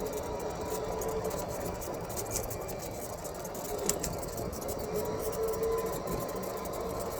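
Heavy trucks and paving equipment running steadily, a continuous engine rumble with a faint steady tone over it.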